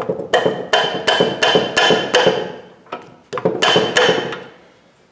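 Hammer blows ringing on steel, about three a second: a run of seven, a short pause, then three more, struck while working loose the bolts of a Brinly three-point plow's depth-wheel bracket.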